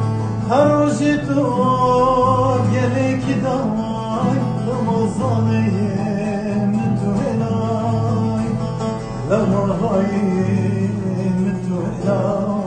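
A man singing a Kurdish song over long-necked lute (saz) accompaniment.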